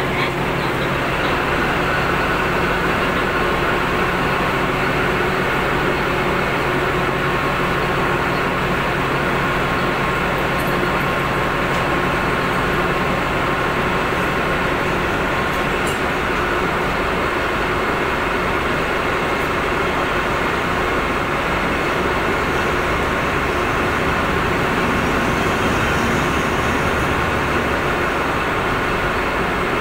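Diesel-electric locomotive running steadily at idle close by, an even engine drone with a faint steady whine over it.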